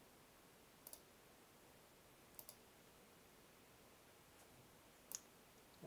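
Faint computer mouse clicks over near-silent room tone: a double click about a second in, another double click a second and a half later, and a single click near the end.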